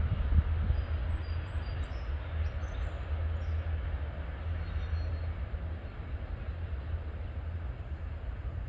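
Freight train hauling trash cars rumbling along the rails as it moves away, the low rumble slowly fading.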